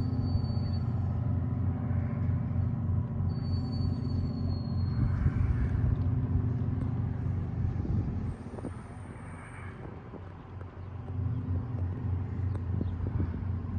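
Fishing vessel's diesel engine running with a steady low drone as it comes in through the inlet. It drops off about eight seconds in and comes back up near the end.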